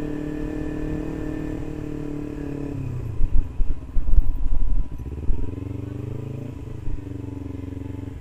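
Motorcycle engine running under way at a steady pitch for the first few seconds. Then come about two seconds of loud low thuds and buffeting, and after that the engine note rises and falls as the speed changes.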